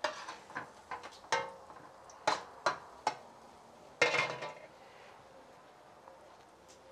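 Kitchen utensils and dishes clinking and knocking: about eight separate sharp knocks in the first four seconds, the last one longer with a short ring, then the sounds stop.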